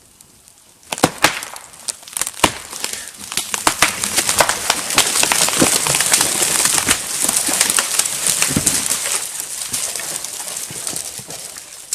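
A dead pine tree giving way and falling: a few sharp cracks of the trunk breaking from about a second in, then several seconds of crashing, snapping branches that dies away near the end.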